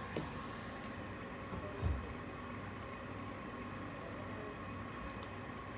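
Steady hiss of a brazing torch flame, with one short low thump about two seconds in.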